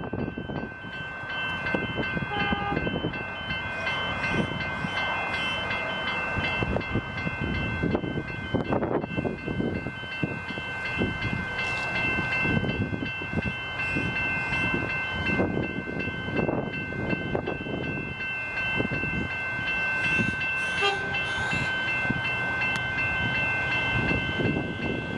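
Level crossing warning bells ringing continuously while the crossing is activated. The low hum of an approaching electric suburban train comes in near the end.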